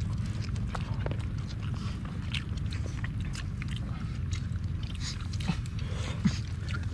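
People chewing and biting into food, with many small crunches and clicks, over a steady low rumble.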